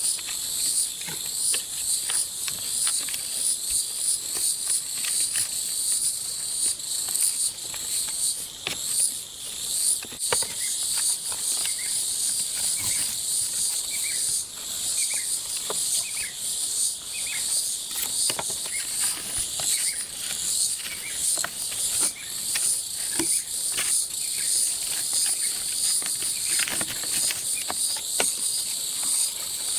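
Insects trilling steadily in a high, pulsing chorus, with scattered light clicks and knocks.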